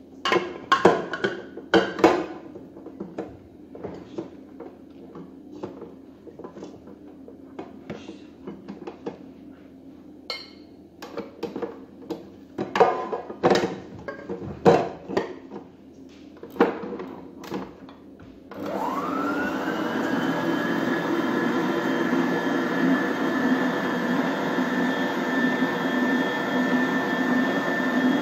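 A stainless-steel stand-mixer bowl knocks and clicks as it is fitted onto the mixer's base. About two-thirds of the way in, the stand mixer's motor starts with a quick rising whine and settles into a steady whine and hum as the whisk beats cream cheese and sugar.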